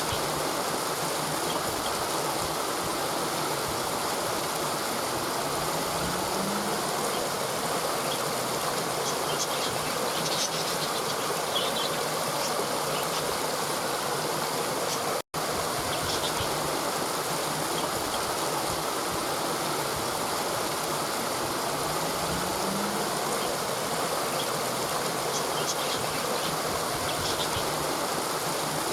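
Waterfall: a steady, even rush of falling water, broken once by a split-second dropout about halfway through.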